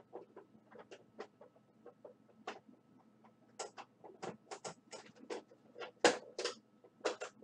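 Irregular clicks and taps of small parts being handled on a cassette recorder being reassembled, with a louder knock about six seconds in.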